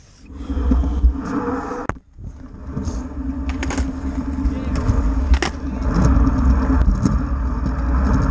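Scooter wheels rolling over skatepark concrete with a steady, loud rumble. The rumble cuts out briefly at the start and again about two seconds in, and a few sharp clicks come later.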